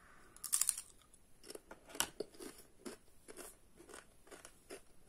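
A Pringles potato crisp bitten into close to the microphone, with a loud crunch about half a second in, then chewed with a run of smaller crunches and one sharper crunch at about two seconds.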